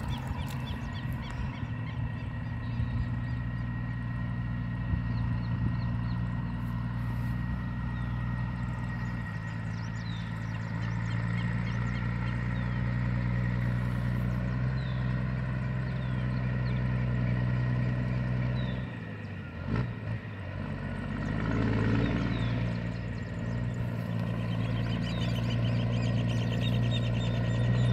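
Scania semi-truck's diesel engine pulling hard under load as it climbs a dirt road, a steady low drone that dips briefly about two-thirds of the way through, then picks up again and grows louder as the truck comes closer.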